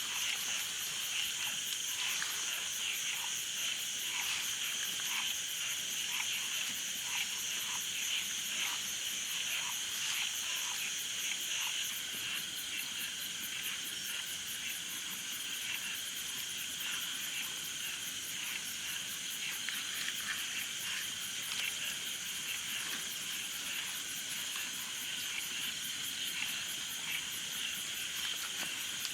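A chorus of frogs and insects trilling steadily, with short frog-like calls repeating during the first half.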